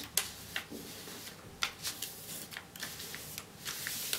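Sheet of paper being folded and creased by hand: soft crinkling and rustling with many short crackles.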